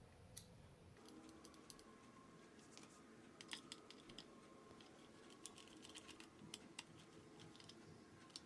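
Faint, irregular light clicks and taps, several a second, of metal floor-lamp rods and parts being handled and fitted together, over a faint steady hum.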